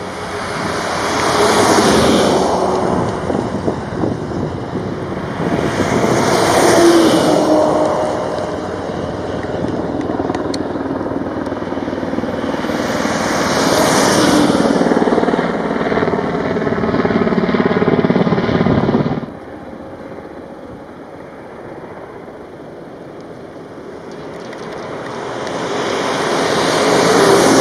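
Wildland fire engines driving past one after another at highway speed, the engine and tyre noise of each one swelling as it nears and fading as it goes by. The sound drops off suddenly about two-thirds of the way through, then another engine approaches and is loudest near the end.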